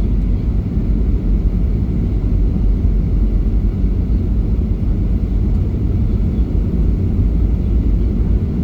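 Steady low rumble of a Boeing 737-800's CFM56 engines and airflow heard inside the cabin, even throughout with no distinct events.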